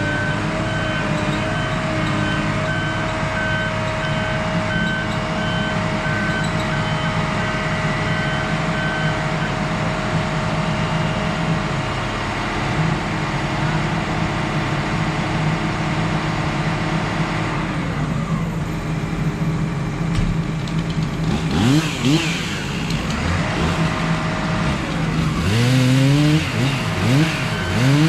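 Stihl two-stroke chainsaw running at steady high throttle in a cut, then dropping in pitch and being revved up and down repeatedly over the last several seconds.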